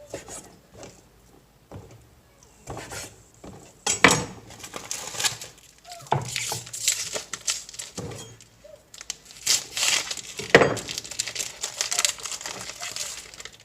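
Irregular knocks of a knife on a cutting board and crinkling of plastic packaging while raw chicken is cut into cubes and handled. The two sharpest knocks come about 4 and 10.5 seconds in.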